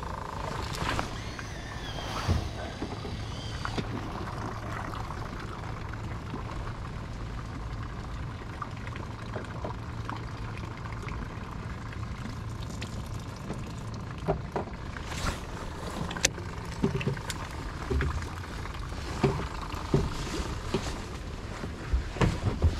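Boat motor running with a steady low hum. About two-thirds of the way in, scattered knocks and clatter start as gear is handled on the boat.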